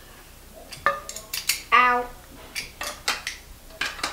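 Metal trampoline frame parts clinking and knocking as they are handled and fitted together, in a string of sharp taps. A short squeak comes a little under two seconds in.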